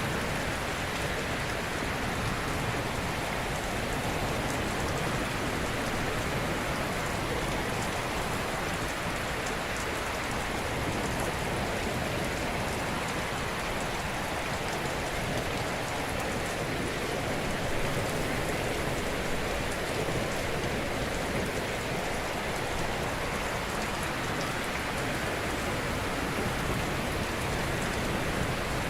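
Ocean surf washing onto a shore, an even, steady rushing hiss with no distinct breaking crashes.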